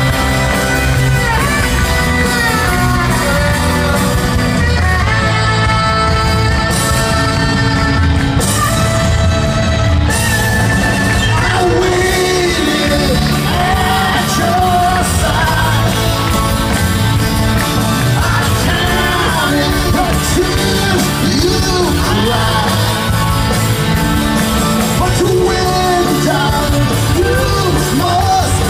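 Live rock band with electric guitars, drums and keyboards playing loudly, with a man singing over the band.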